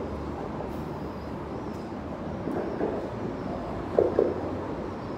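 Steady low rumble of road traffic on the bridge deck overhead, with a few brief, louder mid-pitched sounds about three and four seconds in.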